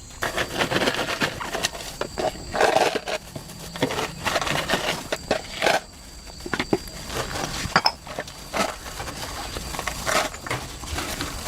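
Irregular knocks, clinks and rustling from handling things while a drink is prepared, with a faint steady high drone of insects behind.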